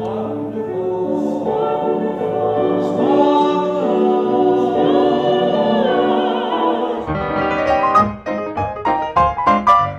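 Classically trained singers, a soprano and a male voice, hold a long sustained note together with vibrato over a grand piano. About seven seconds in, the voices stop and the piano carries on alone with quick, bright notes.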